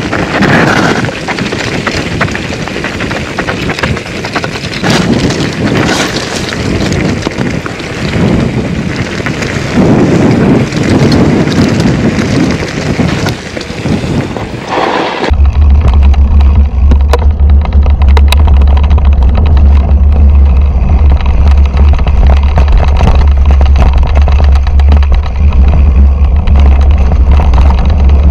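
A 2008 Intense Tracer mountain bike rattling and clattering over a rough, rocky descent, with wind noise on the camera microphone. About 15 s in, the sound cuts abruptly to a loud, steady low rumble with the high end gone.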